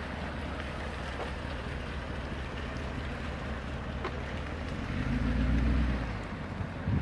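Engine of a Brabus-tuned Mercedes-Benz G-Class idling with a steady low hum, then swelling louder for about a second around five seconds in as the vehicle pulls away. A short thump comes near the end.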